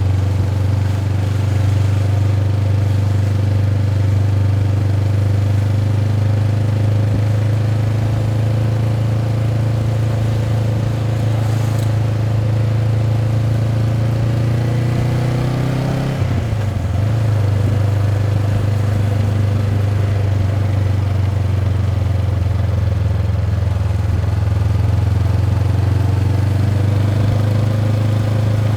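Honda CB500X's parallel-twin engine running through its stock exhaust, a steady low drone. Just past the middle the pitch climbs briefly, then drops sharply and settles back to a steady drone.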